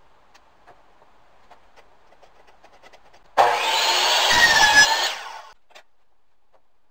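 Miter saw starting up abruptly about halfway through and cutting down through a piece of laminate flooring, with a steady whine over the noise of the cut, for about two seconds, then dying away. A few faint ticks come before it.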